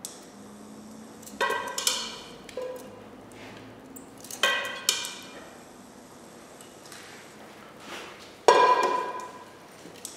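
Kitchen utensils clinking against plates and dishes as boiled asparagus is served out: about five sharp clinks, each ringing briefly, the loudest near the end.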